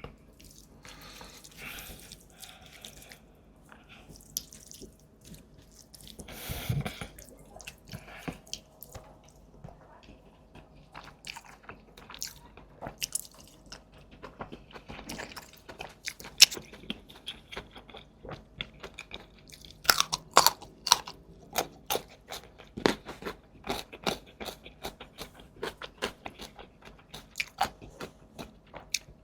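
Close-miked eating sounds: a person chewing and biting food, with many short, wet mouth clicks and crunches. The clicks come thicker and louder in the last third.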